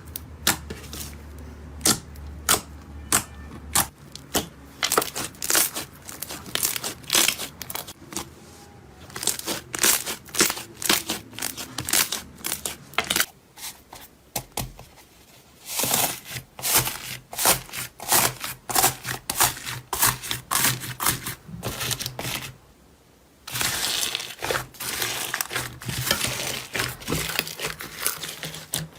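Slime being squeezed and pressed by hand, giving runs of sharp crackling pops and crinkles as air pockets burst. There is a brief pause about three quarters of the way through, then denser crackling.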